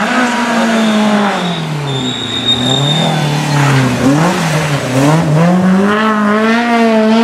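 Rally car taking a hairpin: the engine note falls as it brakes and changes down, a high tyre squeal comes in for about a second as it slides through the bend, then the engine climbs hard through several gear changes as it accelerates away.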